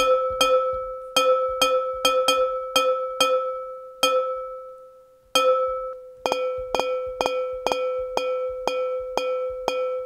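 Sampled recording of a finger-flicked champagne glass, played back as a bell-like instrument with one note triggered over and over. Each hit is a sharp ping that rings at the same pitch, about three a second, with a pause of just over a second near the middle. The hits differ in loudness from one to the next.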